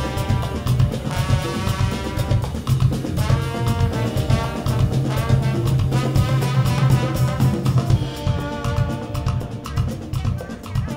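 Live band playing a horn-driven groove: trombone and saxophone lines over drum kit and electric guitars, with a steady beat and heavy low end.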